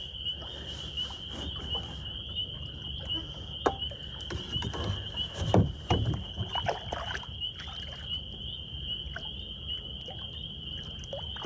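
Knocks and splashes against a kayak as a carp shot with a bowfishing arrow fights on the line, the loudest cluster about five and a half to six seconds in. A steady high-pitched trill and a low rumble run underneath.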